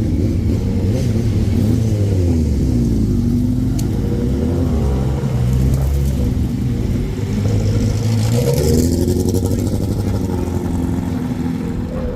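Racing superbikes out on track, their engines revving up and down as they run through the gears, with several bikes overlapping in pitch.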